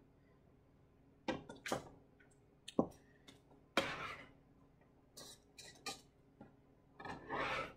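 A metal bench scraper scooping diced carrots off a plastic cutting board and tipping them into a stainless steel bowl: a string of short knocks and clicks, with longer scraping stretches about four seconds in and again near the end.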